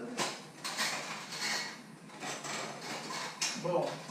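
Dishes and kitchen utensils clattering irregularly as they are moved about in a dish drainer at a stainless-steel sink.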